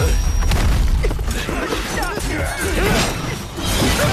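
Action-animation soundtrack: dramatic music over a heavy low rumble, cut by several sharp hits and whooshes as a red energy burst erupts.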